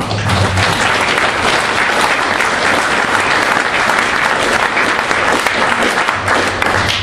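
A large congregation applauding steadily for several seconds, the clapping breaking out all at once and falling away near the end.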